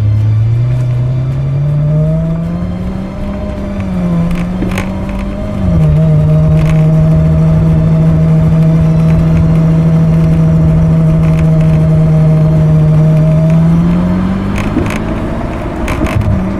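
Ferrari F12 Berlinetta's 6.3-litre V12, heard at the exhaust from the rear bumper, driven gently while the engine is still warming up. The note rises as the car pulls away, drops at an upshift about five seconds in, and holds a steady low drone while cruising. It climbs again near the end.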